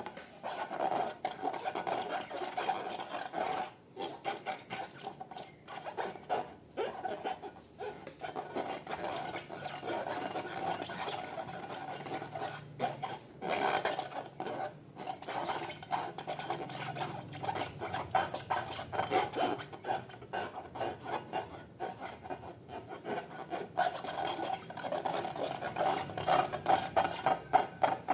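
Slime and balloons being worked by hand: continuous rubbing and squishing, with many rapid small crackles.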